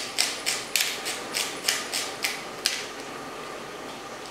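Hand pepper mill being twisted to grind pepper: a rapid, even run of crunching ratchet-like clicks, about four a second, that stops a little under three seconds in.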